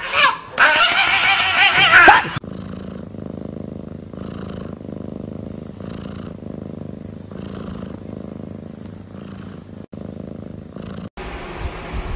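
A domestic cat purring steadily for several seconds, a low fast rumble with a faint swell about once a second. It follows a loud wavering cry in the first two seconds.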